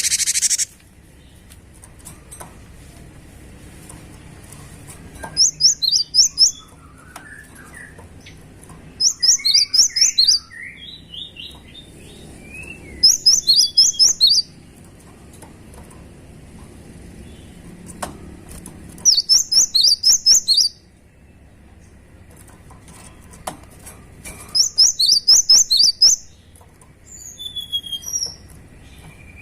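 Cinereous tit (gelatik batu) singing: phrases of quick, high repeated notes, each about a second and a half long, coming every four to five seconds, with softer, lower chirps between. A short hiss sounds at the very start.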